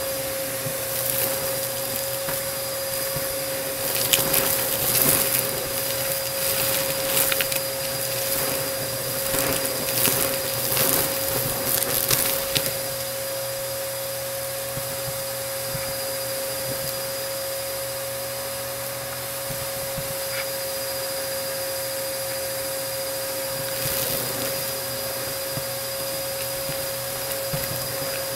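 Bissell AeroSwift vacuum cleaner running steadily, with bursts of crackling and crunching as it sucks up crunchy debris. The crunching is thickest through the first dozen seconds and returns near the end, with a smoother hum in between.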